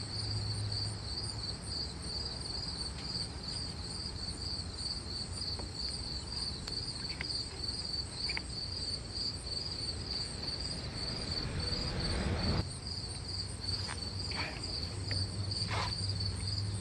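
Crickets chirping in a steady, rapidly pulsing high-pitched chorus, with a few faint clicks and a low rumble that stops suddenly about three-quarters of the way through.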